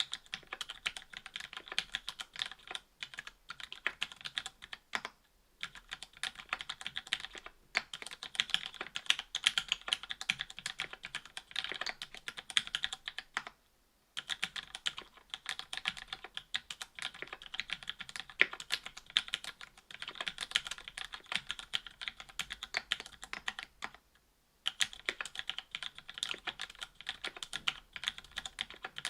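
Fast typing on a mechanical keyboard with lubed Cherry Hyperglide MX Black linear switches, an FR-4 plate and GMK keycaps: a dense run of key clacks that pauses briefly a few times, most clearly about 14 seconds in and again near 24 seconds.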